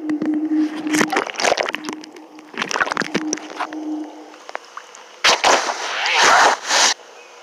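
Water sounds picked up by a phone's microphone while it is submerged in a swimming pool: muffled knocks and sloshing over a low steady hum. About five seconds in there is a loud rush of splashing water as the phone is pulled up out of the pool, ending abruptly.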